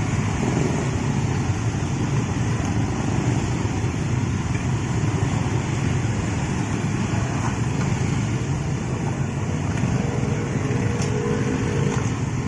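Passenger train passing, a steady rumble of wheels and carriages on the rails.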